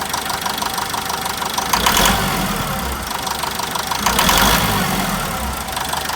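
Hyundai HD truck's diesel engine running with a rhythmic knock, which the owner puts down to a faulty fuel injector. The engine is revved briefly twice, about two seconds in and again about four seconds in.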